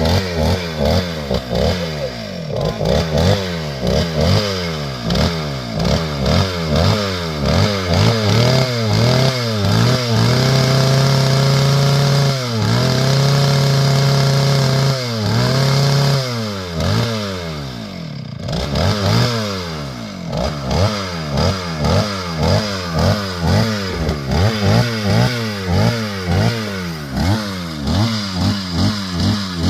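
Two-stroke chainsaw engine revved up and down again and again in quick throttle blips, with a few longer runs held at steady high revs near the middle.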